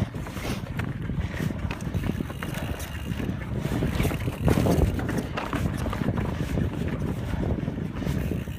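Wind buffeting a chest-taped phone's microphone as a Canyon Spectral enduro mountain bike rides fast down a rough trail, with the tyres crunching over loose stones and the bike rattling in short knocks. A louder jolt comes about four and a half seconds in.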